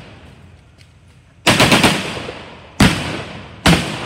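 Blank gunfire from re-enactors' WWII weapons: a short rapid burst of four or five shots about a second and a half in, then two single shots about a second apart, each echoing off across the field.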